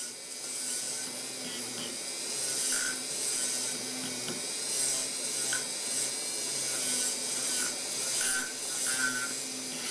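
Dental milling unit's micromotor running a 1 mm finishing cutter at about 8000 rpm, grinding the walls of a metal milled attachment: a steady grinding hiss with short, higher-pitched squeals now and then as the cutter bites.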